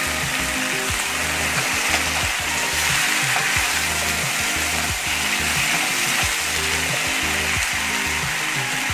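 Onion, garlic and ginger paste sizzling steadily in hot oil with fried onions in a non-stick frying pan, while a metal spoon stirs and scrapes it through.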